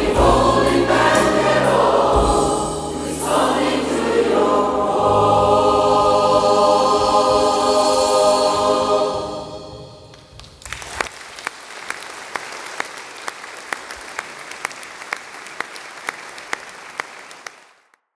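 Gospel choir with low accompaniment singing the final phrases and holding a last chord that dies away about ten seconds in. Audience applause follows, with individual claps standing out, and cuts off abruptly near the end.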